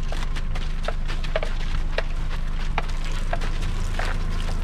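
Wooden cattle bells clacking at uneven intervals, a few knocks a second, as a herd of zebu cattle walks past, over a steady low rumble.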